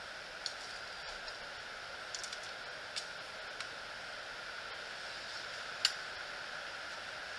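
A few light clicks and taps of a katana and its scabbard being handled as the blade is slid back into the scabbard, the sharpest click about six seconds in, over a steady hiss.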